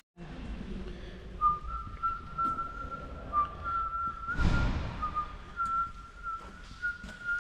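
A person whistling a tune, the notes stepping up and down within a narrow range. There is a short burst of noise about halfway through.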